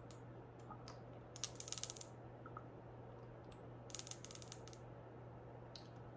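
Small amber glass dropper bottle being opened and its dropper drawn out: the cap turning on the threads and the glass dropper against the bottle make two short runs of quick clicks, about a second and a half in and again about four seconds in, over a faint steady hum.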